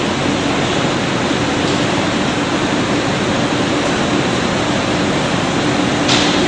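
Steady, even machinery noise from a robotic workcell, with a faint low hum, and a brief hiss about six seconds in.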